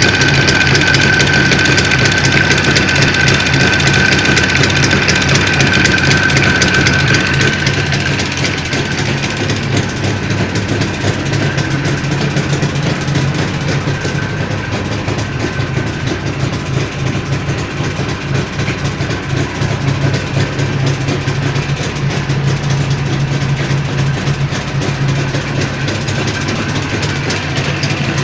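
Jawa 350 type 638's two-stroke twin-cylinder engine running at idle, with a knock that the owner puts down to the crankshaft and the chain, on a worn cylinder and piston set. A high whine over the engine fades out about seven seconds in, and the engine gets a little quieter then.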